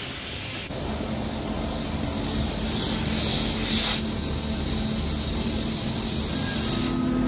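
Wide-belt sanding machine running with a steady drone and hiss as a wooden panel feeds through on its conveyor belt. The hiss drops abruptly about a second in and changes again about four seconds in.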